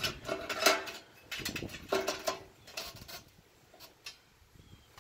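Metal clanking and scraping as curved metal plates are set into a stainless steel beer-keg cooker body: a quick series of knocks, some ringing briefly, in the first three seconds, then it goes quiet.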